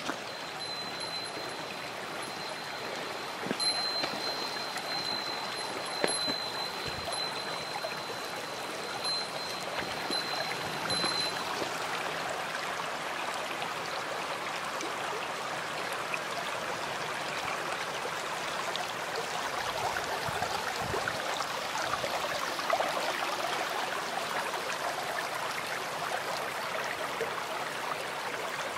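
Shallow creek water running and trickling over rocks in a steady rush.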